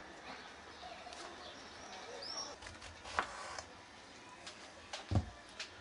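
Kitchen knife slicing through a zucchini onto a plastic cutting board: a couple of short knocks about two seconds apart, the second with a dull thud, over a quiet background with a faint chirp near the middle.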